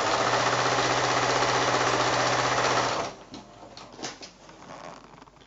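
Domestic sewing machine running steadily, stitching a seam through a pair of quilting fabric squares, then stopping abruptly about three seconds in. Faint clicks and rustling of fabric being handled follow.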